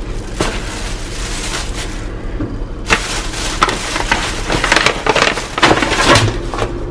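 Thin plastic carry-out bag rustling and crinkling as takeout food is unpacked by hand, with a paper bag and a foam container handled. The crinkling gets busier about three seconds in.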